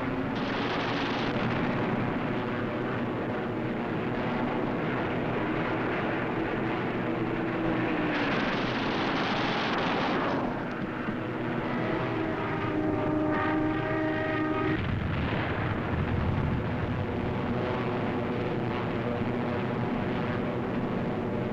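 Piston aircraft engines droning steadily, their pitch shifting and sliding down about seven seconds in, on an old optical film soundtrack.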